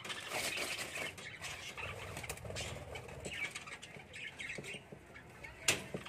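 Small pet parrots fluttering their wings and chirping inside a wire cage, with one sharp click shortly before the end.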